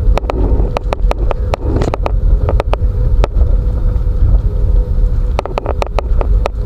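Loud, steady low rumble of a moving vehicle, with a faint steady hum and frequent sharp rattles and knocks, fewer of them in the middle stretch.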